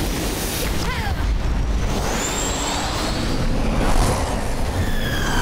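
Cartoon fire-blast sound effect: a steady rush of flame noise over a deep rumble, with quick whooshing sweeps through it.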